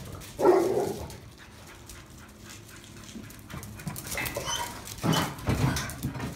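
A dog barks once, loudly, about half a second in, followed by softer, shorter sounds near the end.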